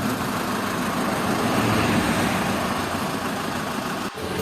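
Mini road train's Isuzu Panther engine running steadily at idle. The sound breaks off abruptly near the end.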